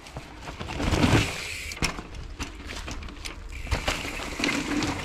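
Mountain bikes riding down a dry, dusty dirt trail: tyres rolling and scrabbling on loose dirt, with sharp knocks and rattles of chain and frame over bumps. The noise is loudest about a second in.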